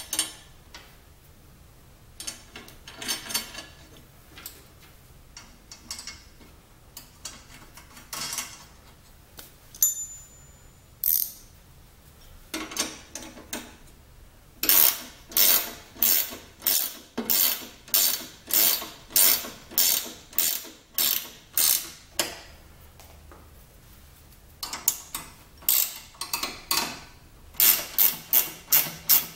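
Ratcheting wrench working a bolt on a steel mower deck, clicking in repeated strokes. Light taps and clicks come first. Then there is a long, steady run of strokes at about two a second, and a faster run near the end.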